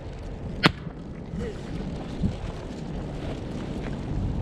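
Wind buffeting the microphone, with a single sharp pop about two-thirds of a second in and another at the very end.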